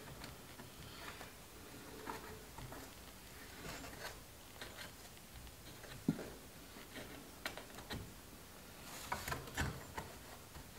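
Faint rustling and rubbing of cloth headliner fabric being handled overhead, with scattered light clicks and taps and a somewhat sharper knock about six seconds in.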